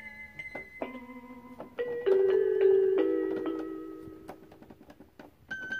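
Electronic keyboard notes pressed one or two at a time, then several keys sounding together about two seconds in, the loudest part, ringing and slowly fading before a new note near the end.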